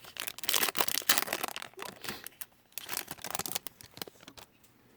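Plastic trading-card pack wrapper being torn open and crinkled by hand. A dense crackle with sharp snaps runs for about four seconds, then dies down.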